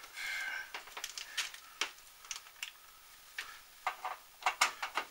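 Irregular light clicks, taps and rustles of hands handling the plastic clock case and its power cord on the workbench while the clock is being plugged in.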